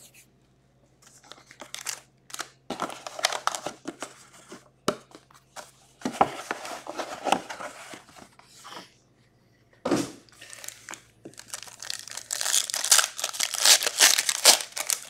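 Cardboard hobby box and a plastic-encased card being handled, with scattered crinkles and taps, then a foil trading-card pack crinkling loudly as it is torn open near the end.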